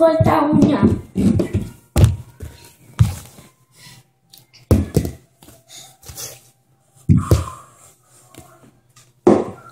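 About five separate hard thunks a second or two apart: small plastic bottles being flipped and landing or falling over on the floor.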